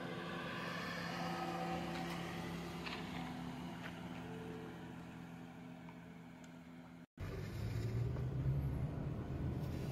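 Honda City sedan driving past: its engine and tyre noise grow louder as it approaches, then fade as it moves away. After a sudden cut about seven seconds in, a louder low engine and road rumble is heard from inside the moving car's cabin.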